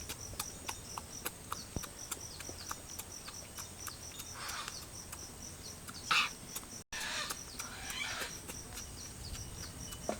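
A cricket chirps steadily in short high pulses, about four a second. Over it come frequent small wet clicks and smacks of chewing, with a couple of brief louder rasps partway through.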